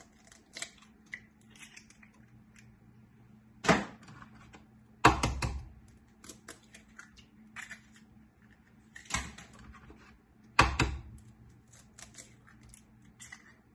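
Eggs being cracked one after another into a stainless steel pan: several sharp taps of shell spaced a few seconds apart, with small crackling ticks of shell being pulled apart between them.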